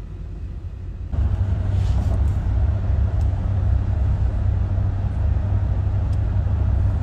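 Steady low rumble of road noise inside a moving car's cabin, stepping up louder about a second in and then holding steady.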